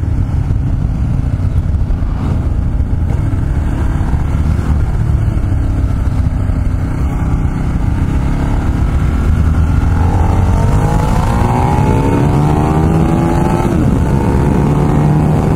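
Ducati Multistrada motorcycle engine pulling gently at low speed, then revving up as the bike accelerates about ten seconds in. The pitch climbs steadily, dips briefly at a gear change near the end, and starts climbing again.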